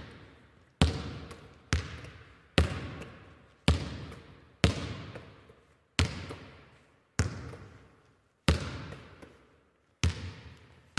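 A series of about ten sharp impact sound effects, one roughly every second, each followed by a reverberant tail that fades away. They accompany the animated title text.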